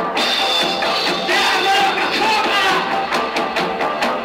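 Punk rock band playing live, with shouted vocals over the band. The amateur tape recording is thin, with almost no bass.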